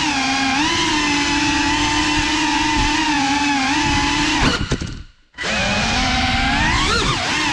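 Motors and propellers of a small indoor FPV drone whining steadily, the pitch shifting with the throttle. About four and a half seconds in there is a short clatter and the motors cut out for a moment, then spin up again.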